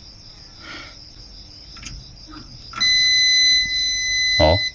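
Multimeter continuity beep: a steady high-pitched beep lasting about two seconds as the probes touch the lamp circuit's wires, ending with a short knock. The beep at the moment of contact, with the reading then slowly rising, is taken by the electrician to mean there is no short circuit in the wiring.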